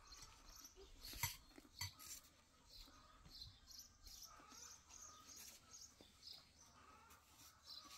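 Faint birds chirping in the background, short high calls repeating throughout, with a couple of light clicks a second or two in.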